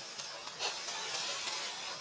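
A steady high hiss of forest background noise, with a few faint, brief clicks.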